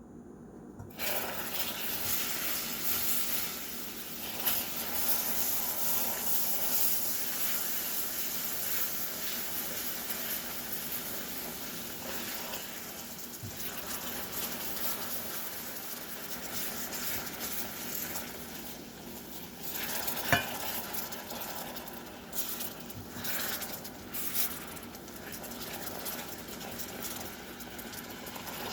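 Caramel of sugar, glucose and cream bubbling and sizzling in a saucepan while it is stirred with a spatula, with scrapes against the pan and one sharp clink about twenty seconds in.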